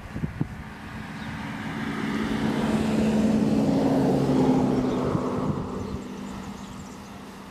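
A passing engine: a low steady hum that swells over a few seconds, is loudest about four seconds in, then fades away.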